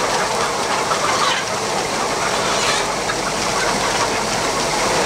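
Dense, steady clamour of a large flock of brown laying hens inside an intensive poultry house, many birds clucking at once.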